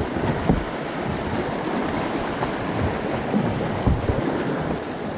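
Steady rush of whitewater in an artificial slalom channel, heard from a kayak riding the current, with a few dull thumps of paddle strokes.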